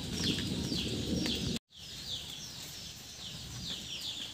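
Songbirds chirping outdoors after rain, a run of short, high, falling notes repeated a couple of times a second. The sound cuts out for a moment about a second and a half in, then the chirping goes on a little quieter.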